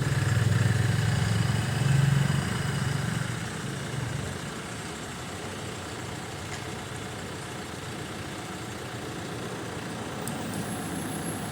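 An engine running, with a strong low hum for the first three seconds or so, then settling to a quieter, steady run.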